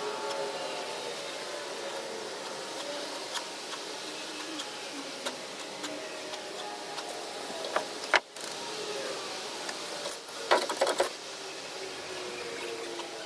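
A small motor whirring steadily, its pitch wandering a little, with scattered light clicks and a quick burst of clattering clicks about ten seconds in.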